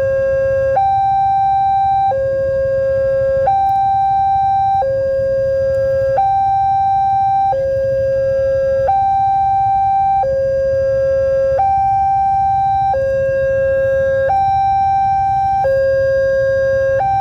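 Railway level-crossing alarm sounding from its horn loudspeaker: an electronic two-tone hi-lo alarm, switching evenly between a higher and a lower tone about every second and a third. It signals that a train is approaching and the crossing is closing. A steady low rumble runs beneath it.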